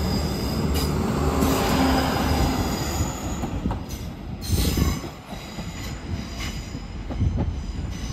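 Diesel multiple-unit train moving slowly through the platform: a low rumble with thin, high wheel squeal on the track, easing off after about five seconds, with a few short knocks later.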